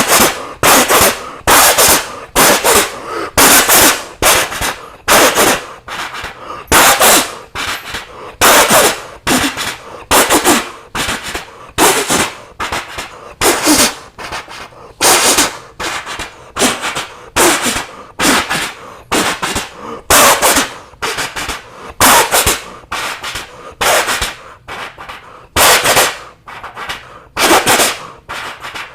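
Mouth imitation of a steam train chugging: sharp, breathy bursts repeated at a steady rhythm of about two a second.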